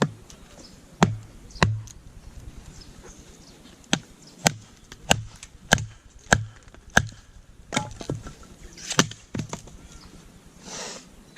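Firewood being chopped or split: a run of sharp wooden strikes, about one every 0.6 s through the middle, with a short rasping sound near the end.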